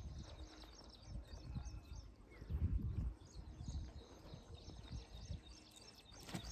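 Small birds chirping faintly over irregular low rumbling, which is loudest about two and a half to three seconds in.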